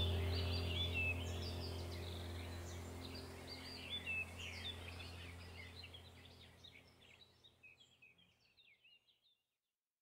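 Background ambient music track: a steady low drone under chirping birdsong, fading out gradually to silence about two-thirds of the way through.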